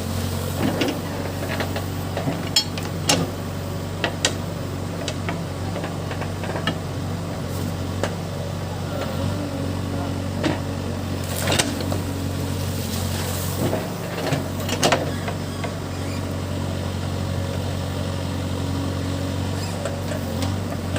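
Case backhoe loader's diesel engine running steadily under digging work, with a handful of sharp knocks and clatters scattered through, loudest around a quarter and again about half to three-quarters of the way in.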